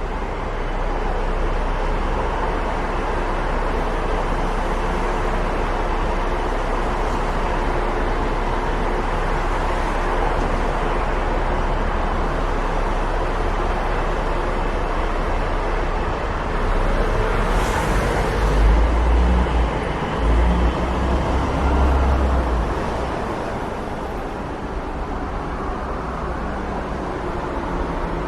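Road traffic: a steady wash of passing cars, with a louder low rumble swelling about two-thirds of the way through, and a brief hiss at its start.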